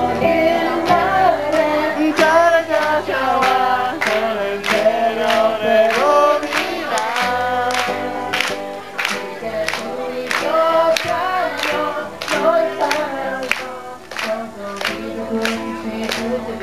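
Live performance of a pop ballad: singing over accompaniment, with a steady beat of regular strokes about twice a second.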